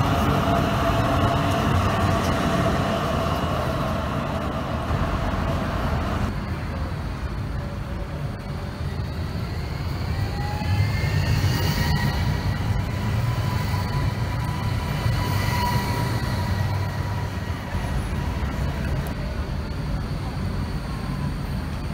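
Zurich trams passing at close range. First a Tram 2000 rolls by with a rumble and steady motor and wheel tones, cut off suddenly about six seconds in. Later a Cobra low-floor tram approaches, its electric drive whining in tones that glide up and down in pitch.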